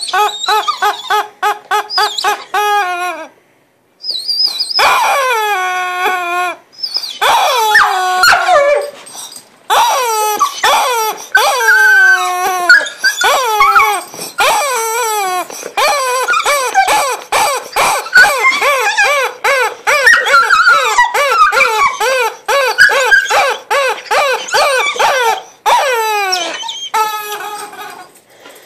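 Purple rubber chicken squeeze toy squealing over and over as a dog bites and squeezes it. Runs of short squeals slide down in pitch, at times several a second, with a brief pause about three seconds in.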